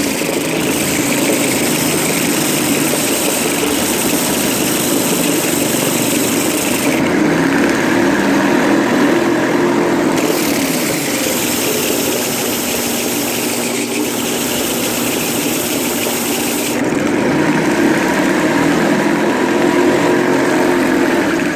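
Homemade belt sander powered by a kitchen blender motor, running loudly and steadily: motor whine with the rush of the sanding belt. The high hiss in the sound fades twice for a few seconds while the machine keeps running.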